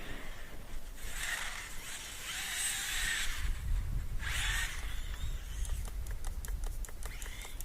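Electric RC monster truck driving in snow: hissing surges of its motor and tyres as the throttle is pulled, over a low rumble, then a run of quick clicks and clatters near the end.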